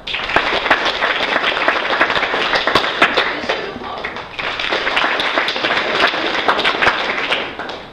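Audience applauding: dense clapping that starts abruptly and dies away just before the end.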